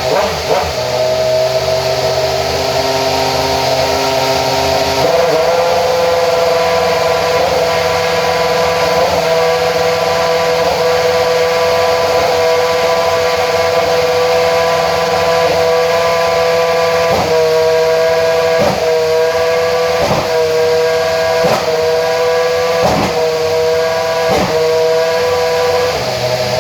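2009 Brawn GP Formula One car's Mercedes 2.4-litre V8 running at a steady, high-pitched fast idle during its warm-up. The note shifts slightly about five seconds in. From about two-thirds of the way through, it dips briefly about every second and a half.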